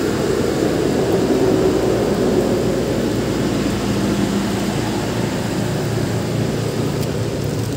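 Steady engine hum, its pitch dropping slightly about two-thirds of the way through.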